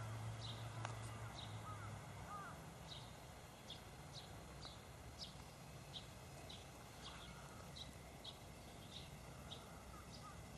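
Faint field ambience of short, high chirps repeating a little faster than once a second, with a few softer rising-and-falling calls. A low steady hum stops about two seconds in.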